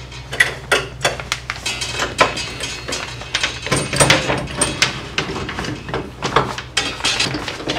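Irregular metallic clanks and knocks from a steel C-clamp and aluminium bulwark plate being levered with a wooden pole, over a steady low hum.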